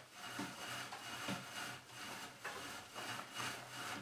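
Natural-fibre rope being pulled through the drilled holes of a tulip poplar bed frame's rails, rubbing against the wood in a run of short strokes, about two a second.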